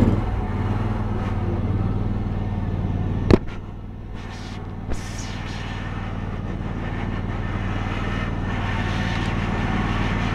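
John Deere riding lawn mower's engine running steadily as it is driven. A sharp click comes about three seconds in, after which the engine sound drops a little and then slowly builds again.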